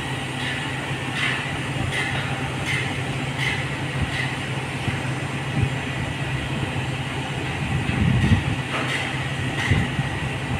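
Crane's diesel engine running steadily with a low hum, while the duct is being lifted, with short ticks recurring every second or so.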